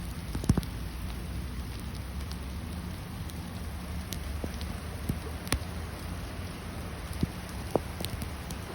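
Hail falling: a steady hiss of hailstones with scattered sharp ticks as individual stones strike nearby surfaces, the loudest about half a second in and about five and a half seconds in.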